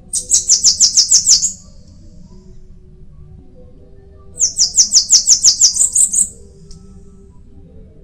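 Bananaquit singing: two short songs, each a rapid run of about ten very high notes, the second beginning about four seconds after the first.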